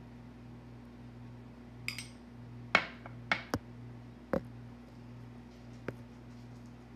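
A metal spoon clicking and tapping against a container and the pizza crust as red toppings are spooned out: about six sharp knocks between two and six seconds in, the loudest near three seconds. A steady low hum runs underneath.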